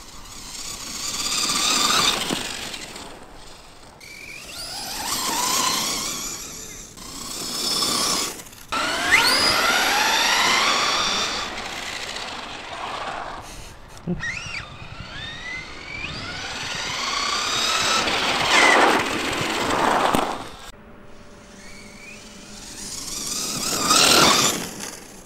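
Brushless electric motor and drivetrain of a Thunder Tiger SSK v2 RC monster truck, converted from nitro, whining as it drives in several separate runs. In each run the whine climbs in pitch as the truck speeds up and falls away as it slows or moves off.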